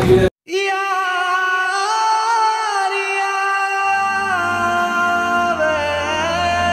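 Background music: one song cuts off abruptly, and after a brief silence a solo voice sings long, slowly wavering held notes. A low steady drone comes in underneath about four seconds in.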